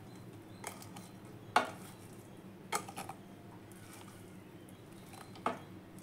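Cooked rice scooped by hand out of an aluminium pot into an aluminium kadai, with about five light clinks and knocks of metal cookware, the sharpest about one and a half seconds in.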